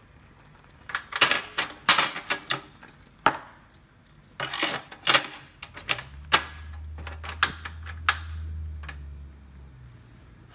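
Portable butane stove having its empty gas canister swapped: a run of sharp metallic clicks and clacks from the cartridge, its latch and the control knob. In the second half a low steady rumble rises for about three seconds, then fades, as the burner is relit under the wok.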